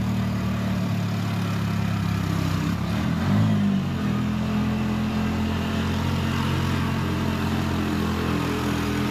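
Bus engine running steadily, heard from on board. About three seconds in, its note briefly rises and falls with a small surge in loudness, then settles again.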